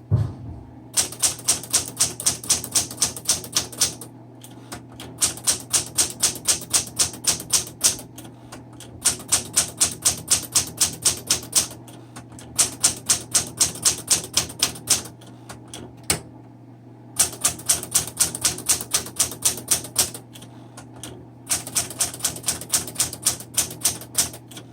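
1972 Smith Corona Sterling manual typewriter being typed on: fast runs of sharp keystrokes, about five a second, each run a few seconds long with short pauses between.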